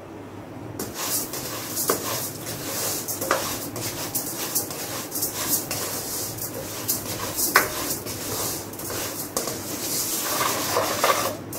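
Dry rice grains poured into a dry nonstick wok and stirred with a spatula for dry-roasting over low heat. The grains rattle and hiss against the pan, with scrapes and small clicks from the spatula, starting about a second in.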